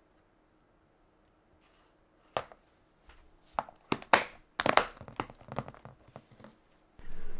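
Near silence, then from about two seconds in a run of sharp cracks and crinkles from something brittle being crushed and handled. A steady rustle follows near the end.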